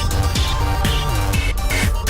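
Electronic background music with a steady dance beat and sliding bass notes.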